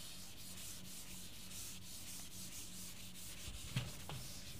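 Faint, scratchy rubbing of hand writing as a circuit is drawn, in short repeated strokes, over a steady low electrical hum.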